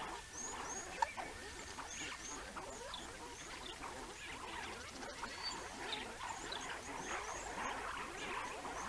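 Banded mongoose troop calling: a dense stream of many short, overlapping chirps and twitters. A single sharp click about a second in.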